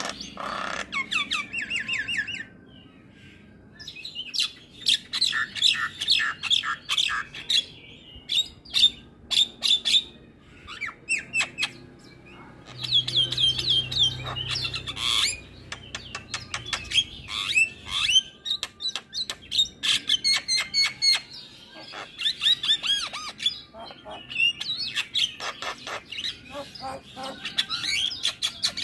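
Javan myna singing a fast, varied run of chirps, whistles and trills in dense bursts broken by short pauses, with a brief lull about three seconds in.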